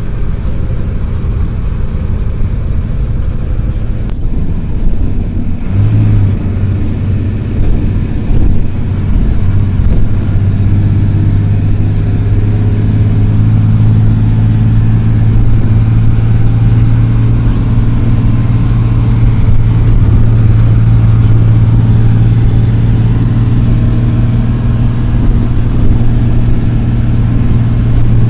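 Marcopolo Senior Midi bus's diesel engine and road noise heard from inside the passenger cabin while the bus is under way. About six seconds in, a steady low engine drone sets in and the sound grows a little louder, then holds steady.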